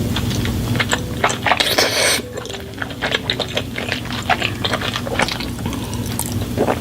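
Close-miked mukbang eating sounds: a rapid, irregular run of wet clicks and smacks of chewing, with a short, louder rustling crunch about two seconds in.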